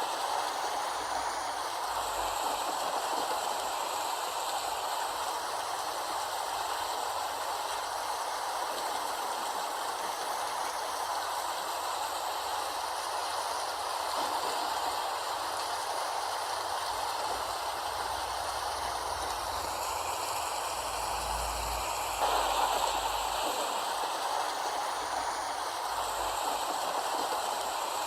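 Steady rain falling, an even, unbroken hiss, slightly louder from about 22 seconds in.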